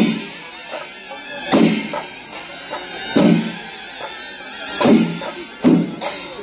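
Chenda melam, the Kerala temple percussion ensemble: chenda drums beat a rhythm with heavy accented strokes about every one and a half seconds and lighter beats between, over the steady clash of hand cymbals.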